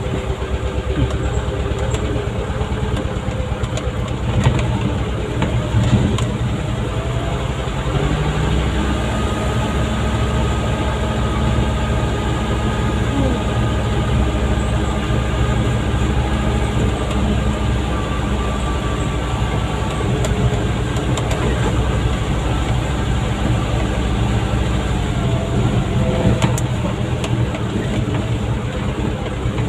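Mitsubishi dump truck's diesel engine running steadily under load, heard from inside the cab, as the truck drives over a muddy, potholed dirt track. The engine note rises about eight seconds in, and a few knocks come from the bouncing cab.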